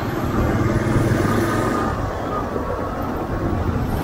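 Motorcycle engine running steadily while riding at low speed, with a steady rush of wind and road noise.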